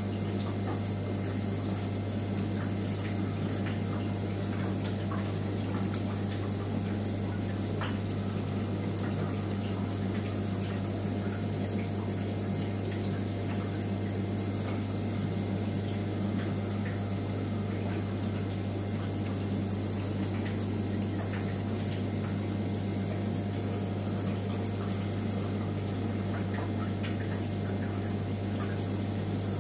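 Aquarium pump running: a steady low hum with an even wash of moving water.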